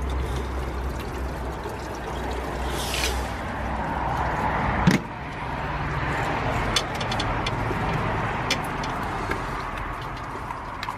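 Steady low background rumble, with a sharp click about five seconds in, then faint clicks and rustles of gloved hands working on hoses and connectors in a car's engine bay.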